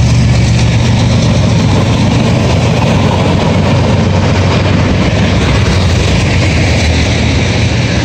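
CN freight train rolling past, its autorack and tank cars making a loud, steady rumble on the rails. The low drone of the just-passed diesel locomotives weakens over the first few seconds.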